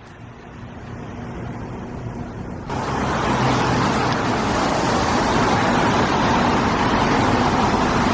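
Vehicle noise with a low steady hum, growing steadily louder, then a loud, even rushing noise from about two and a half seconds in.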